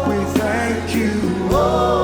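Gospel music: singing with sustained held notes over a steady bass and a regular beat.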